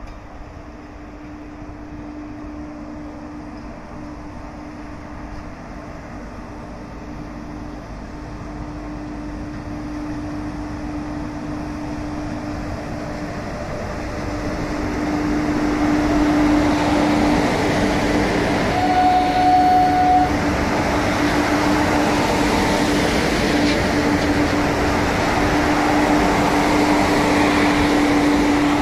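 A set of WAG-7 electric locomotives coupled together runs light downhill, approaching and then passing close by. A steady hum sits under the rumble of wheels on rails, which grows louder over the first half and then stays loud as the locomotives go by. A short, clear tone sounds briefly about two-thirds of the way through.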